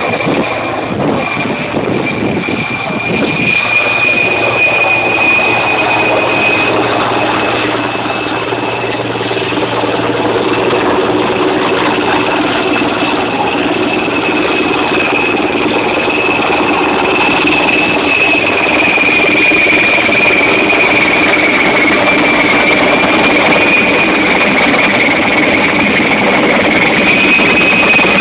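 Sikorsky S-64 Skycrane twin-turbine heavy-lift helicopter flying in low overhead: a steady high turbine whine over the dense rotor and engine noise, growing louder as it comes nearer.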